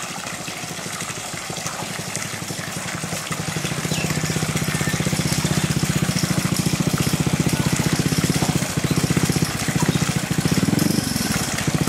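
A small motor running steadily with a fast, even pulse, growing louder about four seconds in, over churning water.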